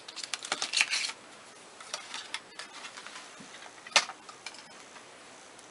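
Small clicks and rustles from cosmetic packaging being handled, a cluster of them in the first second, then a few scattered ticks and one sharp click about four seconds in.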